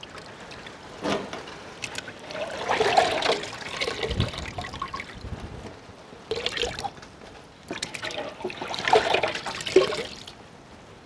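Hands sloshing in a steel pot of water and lifting out handfuls of washed, boiled clam meat, water trickling back into the pot. It comes in a few uneven splashes and dribbles, one with each handful.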